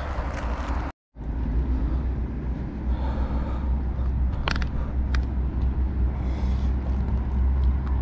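A steady low rumble with a few sharp clicks about four and a half and five seconds in.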